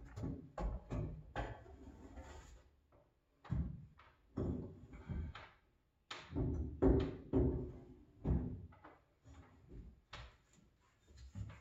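Wooden 2x4 boards knocking, thunking and scraping as they are shifted and set into place under a fibreglass truck camper shell. The knocks come irregularly, several a second at times, and are loudest about seven seconds in.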